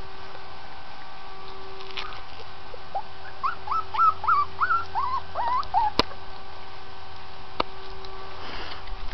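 Kelpie puppy giving a quick run of about ten short, high, rising yips, between about three and six seconds in. Two sharp clicks follow.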